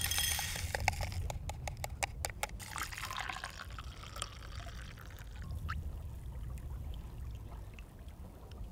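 Hot water poured from a camping pot into an enamel mug of instant coffee, with milk poured in near the end. Sharp ticks and rustles from the emptied coffee sachet come first.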